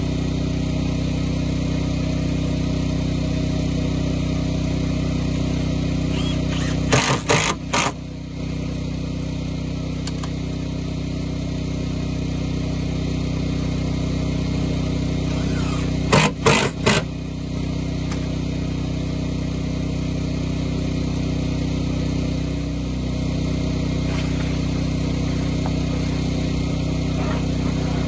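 Portable generator engine running steadily, with two short bursts from a cordless impact driver driving screws into plywood decking, one about a quarter of the way in and one just past halfway.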